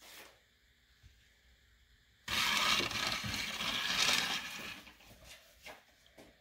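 Chalk line reel paying out its string as the line is drawn along the board. It makes a rasping whir that starts about two seconds in and lasts about two and a half seconds, followed by a few faint clicks.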